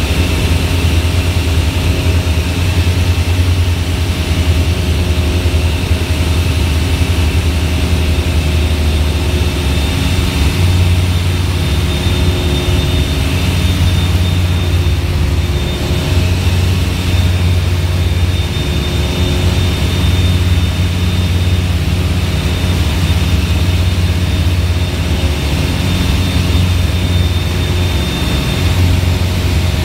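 Steady cabin drone of a light twin-engine airplane's piston engines and propellers on final approach, with a faint high whine alongside. One engine's throttle cable is broken.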